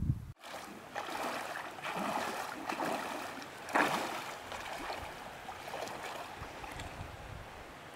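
A person wading into a shallow river, water splashing around the legs in uneven surges with a sharper splash about four seconds in, then settling. A short low wind rumble on the microphone comes just before.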